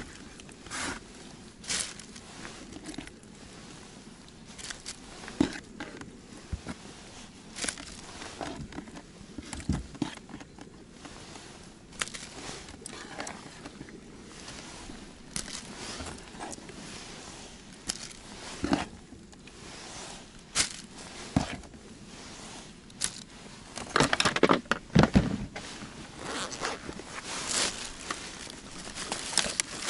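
Hands handling gear in a plastic ice-fishing box: irregular clicks, scrapes and plastic-bag rustling, with a louder flurry of rustles and knocks a little after the middle.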